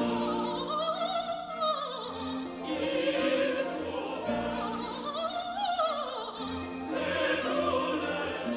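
Operatic singing over classical instrumental accompaniment: a voice with a strong vibrato sings two long phrases that each rise and then fall.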